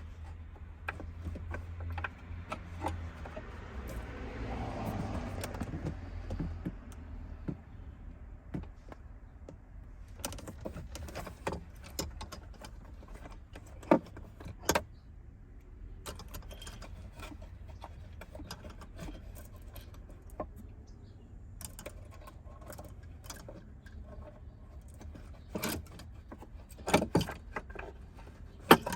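Scattered clicks, knocks and rattles of parts and trim being handled and fitted back into a car's rear interior, with a stretch of rustling a few seconds in. A couple of sharper knocks stand out near the middle, and a cluster near the end.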